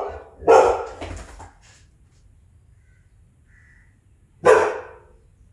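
Golden retriever puppy barking for attention: a loud bark about half a second in, trailing into a couple of weaker ones, then after a pause a single loud bark near the end.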